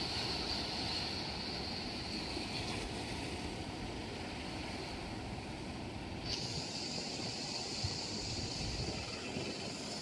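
Steady sea surf and wind rushing on the microphone, with a constant high hiss over it; the sound shifts abruptly about six seconds in.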